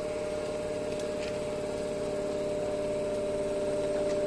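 Parked Shizuoka Railway 1000 series electric train's onboard machinery running with a steady hum in a high and a lower tone, growing slightly louder near the end.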